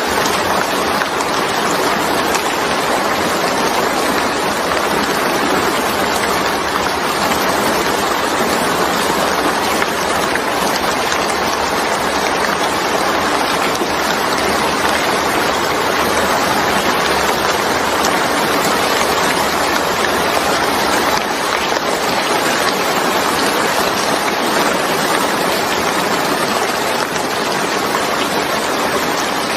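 Steady rainfall: an even, unbroken hiss of rain that neither swells nor fades.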